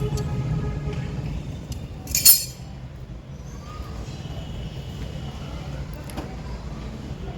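A single sharp clink of a hard object about two seconds in, ringing briefly, over a steady low hum.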